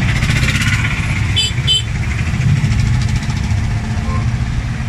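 A motor engine running steadily with a low rumble, with two short high beeps about a second and a half in.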